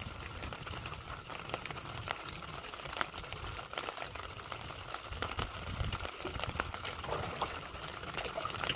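Light drizzle falling on the sea and the boat: an even hiss scattered with many small, irregular raindrop ticks, over a low rumble.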